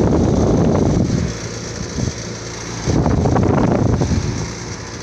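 A Trane XR 5-ton air-conditioner condensing unit running in cool mode with a loud, rough rattle. The rattle swells twice, at the start and again about three seconds in. The rattle is put down to a loose part rather than a failing compressor.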